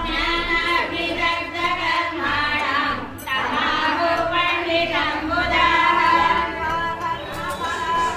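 Group of women singing a devotional hymn together in held, sung phrases, with a short break about three seconds in.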